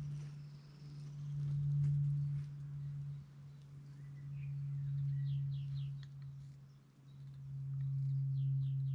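A steady low hum that swells and fades every few seconds, with a few faint bird chirps in short runs about halfway through and near the end.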